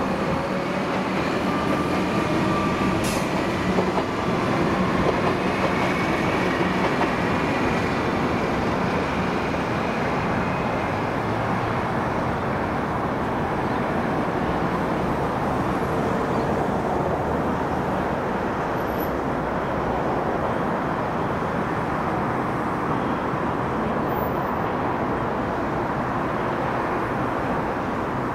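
Suburban electric multiple-unit train running away along the track, its faint whine gliding and fading over the first ten seconds or so, with a single click about three seconds in. A steady background noise holds at the same level throughout.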